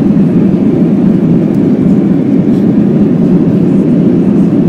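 Loud, steady noise inside the cabin of an Airbus A321 slowing down on the runway just after landing, wing spoilers raised: engine and rollout noise heard through the fuselage, heaviest in its low-middle pitch.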